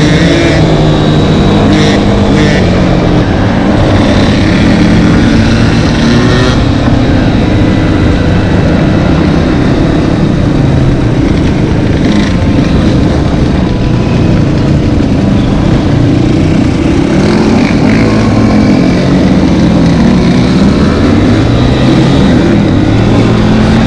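Dirt bike engine running under load on the move, its note rising and falling again and again as the throttle is opened and closed.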